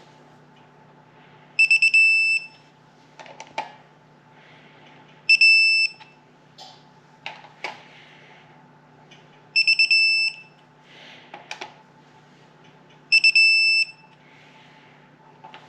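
Digital torque wrench beeping as bolts reach the 13 foot-pound setting: four beeps about four seconds apart, each a quick stutter running into a short held tone. Short clicks and knocks of the wrench on the bolts come in between.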